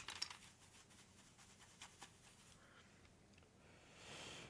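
Mostly near silence, with a few light clicks at the start and a brief, soft rubbing hiss near the end: a duster being handled and brushed over a bare keyboard.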